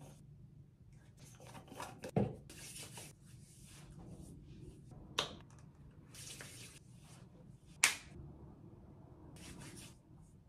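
Quiet close-up skincare handling sounds: plastic product tubes opened and squeezed, with three sharp clicks, and soft rustling as cream is squeezed into a palm and rubbed over the face.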